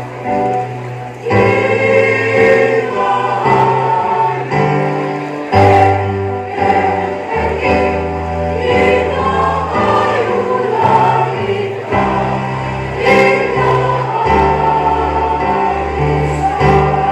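Mixed choir of women and men singing together, sung notes changing every second or so over steady low notes.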